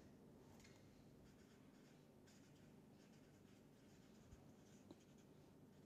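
Faint scratching of a marker writing on paper in short strokes, over near silence.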